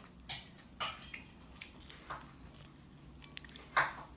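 Homemade glue slime being worked by hand: a few short, sticky squelches and snaps, the loudest near the end. The slime is still stiff and tearing rather than stretching smoothly.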